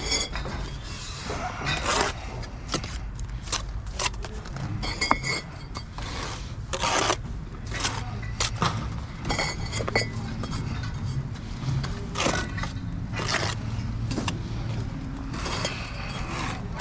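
Bricklaying: a steel trowel scraping and spreading mortar and tapping bricks down, with clay bricks clinking as they are taken from a stack and set on the wall, in many short, irregular knocks and scrapes over a steady low hum.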